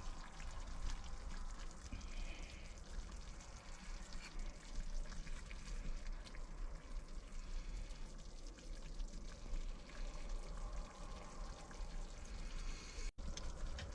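Potato-and-beef stew sizzling and bubbling, a soft steady crackle of small pops with a low hum underneath.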